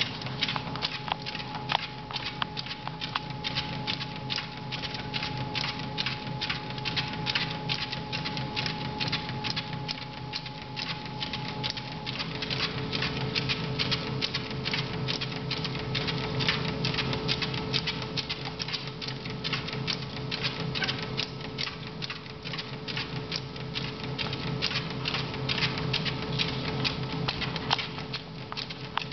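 A small dog's paws and claws pattering on a moving treadmill belt in a quick, even trotting rhythm, over the steady hum of the ProForm treadmill running.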